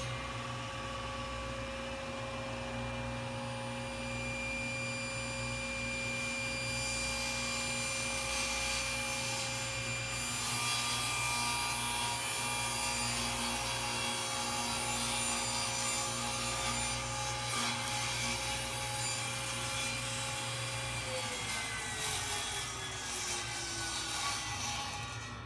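Table saw running as a crosscut sled is pushed through, the blade cutting through a plywood board partway through. Near the end the saw is switched off and its pitch falls as the blade winds down.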